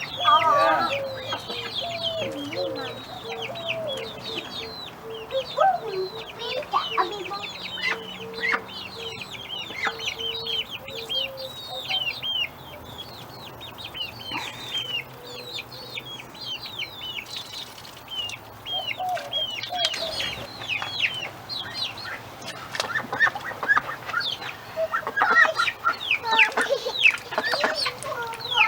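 Backyard chickens clucking, with many short, high chirps throughout and busier calling near the end.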